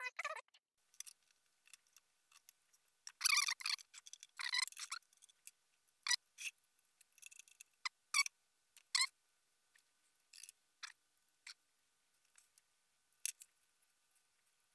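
Hand assembly of an airgun's top rail: scattered light clicks and taps of small bolts, washers and a screwdriver against the metal parts, with a louder spell of scraping and rattling about three to five seconds in.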